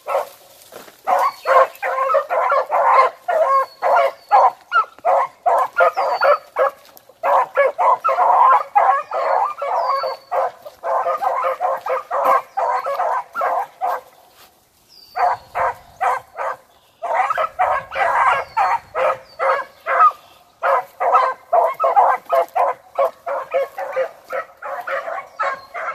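Hounds barking steadily on a rabbit's scent trail: quick, repeated barks, several a second, in runs of a few seconds with brief pauses, the longest about halfway through.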